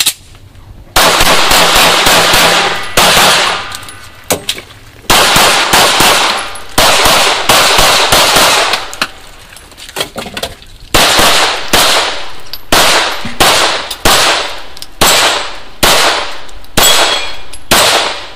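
Semi-automatic pistol fired in a long string of shots, starting about a second in, in quick pairs and bursts with short pauses between, each shot leaving a decaying echo.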